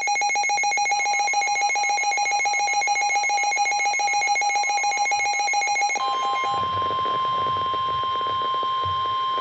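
An electronic emergency alert: for about six seconds a fast, evenly pulsing alarm made of several fixed pitches, then a single steady tone near 1 kHz over radio hiss. This is the alert signal that comes before a weather radio warning message, the steady part matching the NOAA Weather Radio 1050 Hz warning alarm tone.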